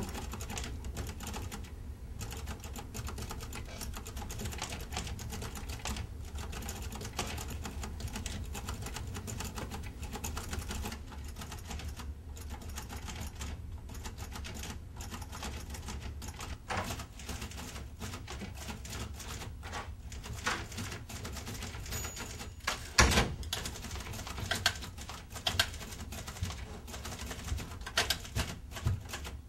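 Manual typewriter being typed on: irregular clacking of the keys over a low steady hum, with a few sharper, louder strikes about 23 seconds in and near the end.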